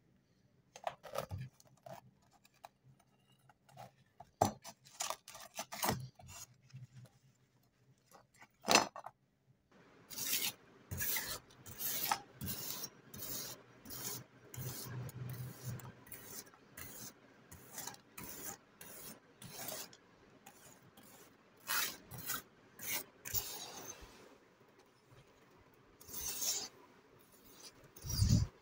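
Dry scraping and rubbing of rusty metal and crumbling rust as crusted rust and rotten handle wrapping are picked off an old rusted file knife and the rust dust is swept across the board. It starts as sparse scratches and clicks, then turns into quick repeated strokes about twice a second from about a third of the way in, with a dull knock near the end.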